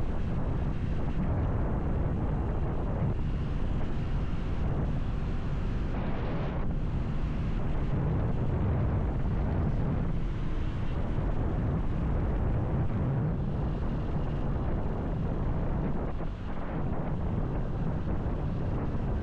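Steady low rumble of wind buffeting an action camera's microphone on a moving motorcycle, with the motorcycle's running noise underneath. There is a brief lull about three-quarters of the way through.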